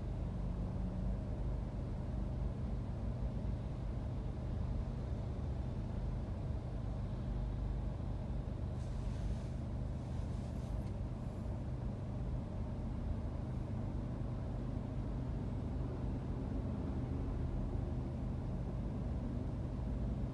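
Steady low rumble of road traffic, heard from inside a car idling at a red light as vehicles pass in front. A brief faint hiss comes about nine seconds in.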